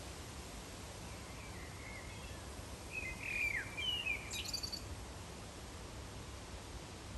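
A small bird calling over a steady low background hiss: a few quick chirps and sliding whistles about three seconds in, ending in a fast high trill.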